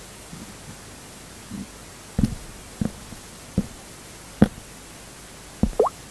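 Steady microphone hiss with about six short taps and pops, scattered a second or so apart, from fingers tapping a phone's touchscreen; one pop near the end rises quickly in pitch.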